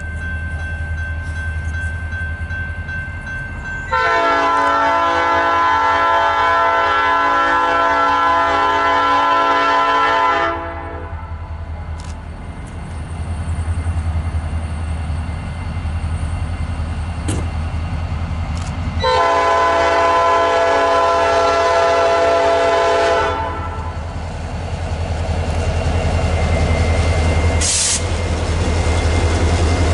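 Nathan Airchime P5 five-chime locomotive horn sounding a chord. It gives one long blast of about six seconds, then after a pause a shorter blast of about four seconds, over the steady low rumble of the train.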